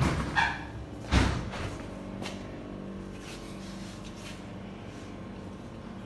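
Steady hum of running machinery in a butcher shop's workroom. A couple of knocks at the start and a loud thump about a second in.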